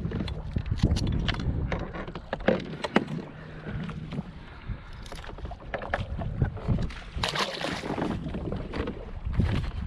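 Sharp clicks and knocks of a metal wire fish stringer being handled against a kayak, over a steady low rumble of wind and water, with a splash of water about seven seconds in as a hand reaches over the side.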